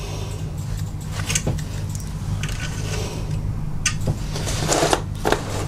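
Light clicks and short rustles of hands handling a cardboard box holding a digital notepad tablet, over a steady low hum.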